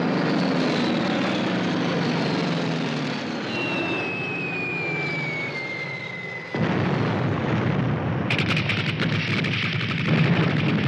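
World War II battle sound effects: an aircraft engine drone with a slowly falling whistle, then a sudden loud blast about six and a half seconds in, and rapid cracking gunfire from about eight seconds on.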